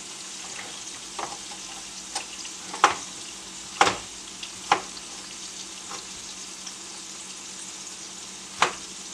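Beef burger patties sizzling steadily in a frying pan, with about six sharp knocks of a knife on a cutting board as a tomato is sliced.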